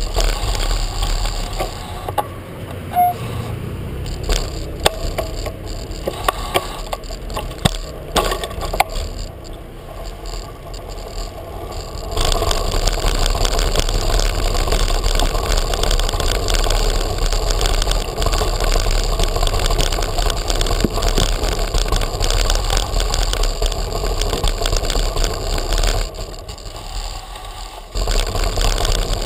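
Bicycle rolling over cobblestones with the tyres rumbling and the bike and camera mount rattling. For the first stretch there are scattered sharp clicks and knocks. From about twelve seconds in the rumble turns loud and steady, then eases off for a moment near the end.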